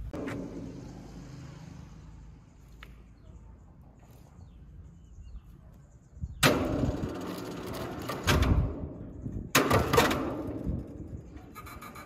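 A low rumble fading away, then three loud sudden bangs with clattering tails, about six and a half, eight and ten seconds in.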